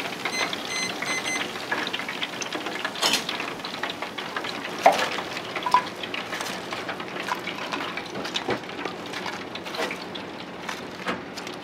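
Hot deep-frying oil crackling and hissing steadily, with sharp clicks of metal tongs against the wire draining rack and plate as fried chicken tempura is lifted out. Three short electronic beeps sound near the start.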